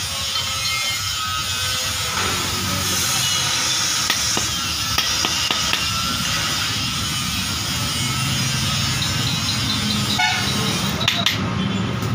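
Steady background din, then near the end a hammer knocking on a steel drum brake shoe: a quick run of sharp metallic strikes, several a second.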